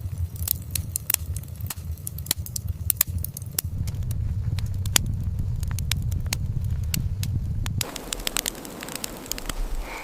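Wood fire crackling, with scattered sharp pops over a low steady rumble; the rumble stops about eight seconds in.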